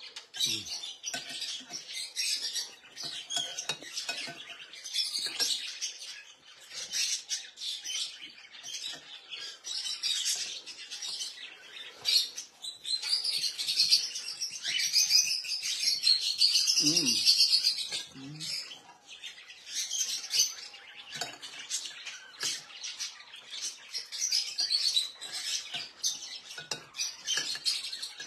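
Caged birds chirping continuously, louder for a few seconds around the middle, with a metal spoon clinking against a bowl now and then.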